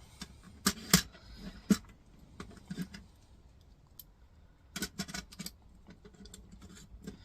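Small metal parts and tools clicking and tapping as they are handled on a workbench during a teardown, a few scattered clicks early on and a quick run of several about five seconds in.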